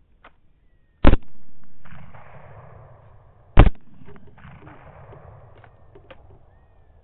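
Two shots from a 6.8 SPC rifle, about two and a half seconds apart. Each is a sharp crack followed by a long echo rolling away across open ground.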